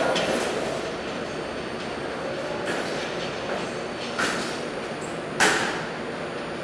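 R46 subway train pulling away down the tunnel. Its rumble on the track fades over the first second, then a couple of sharp clacks from its wheels come in the second half.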